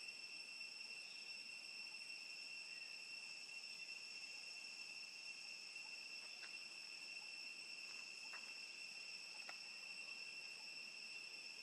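Faint insect chorus: a steady, unbroken high-pitched drone, with a few soft ticks in the second half.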